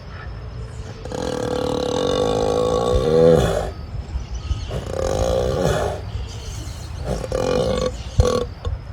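An ox snoring in deep sleep: long, loud, pitched snores, one running about two and a half seconds and rising in pitch at its end, then a shorter one and a few brief ones near the end.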